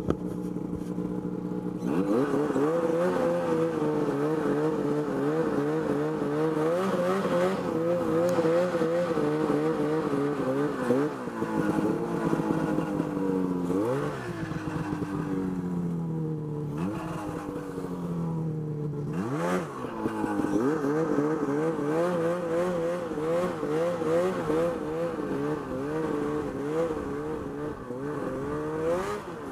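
Ski-Doo Summit X 800 snowmobile's two-stroke engine under way. It runs steadily for about two seconds, then revs up and pulls with its pitch wavering under throttle. Three times it briefly falls off the throttle, the pitch dropping and climbing back, and it revs up again at the end.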